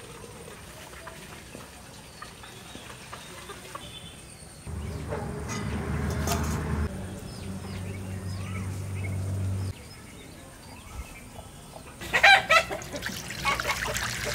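Chickens clucking, with a rooster giving a loud crowing call near the end. A low rumble runs for several seconds in the middle.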